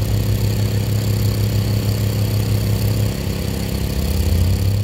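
Fire truck engine running steadily, a low drone that drops slightly in pitch about three seconds in.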